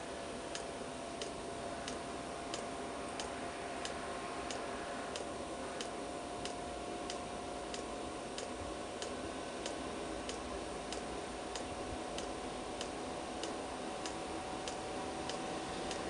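Chinese 5 kW planar-style diesel air heater running: its fuel dosing pump ticks evenly, about one and a half times a second, over the steady whine and rush of the combustion air fan, which rises slightly in pitch.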